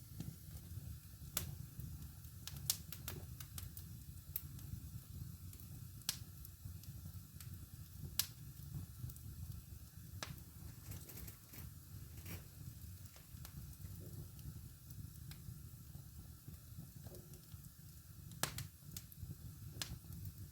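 Fireplace fire burning with a steady low rumble and irregular sharp crackles and pops, a few of them louder snaps.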